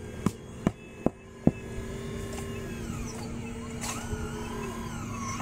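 Radio-controlled model CAT 5110 excavator at work: sharp clicks about two to three a second for the first second and a half, then a steady motor hum with whining tones that glide up and down as the upper body swings round.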